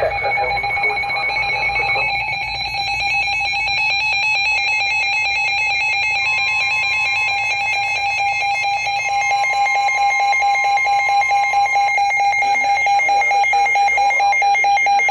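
Emergency alert tone sounding loud and unbroken, a fast-pulsing electronic tone. A second, higher tone joins it from about six seconds in to about twelve.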